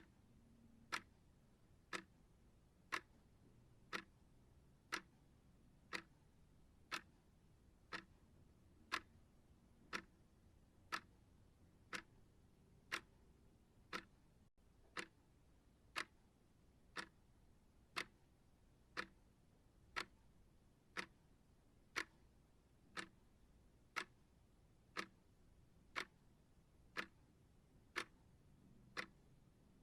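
Clock-style timer ticking evenly, one sharp tick every second.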